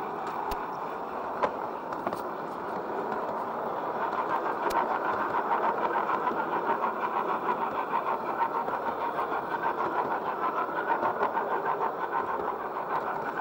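LGB garden-scale model train running along its track, with a steady whirring rattle from its motor gearing and wheels. The sound grows a little louder and more uneven about four seconds in.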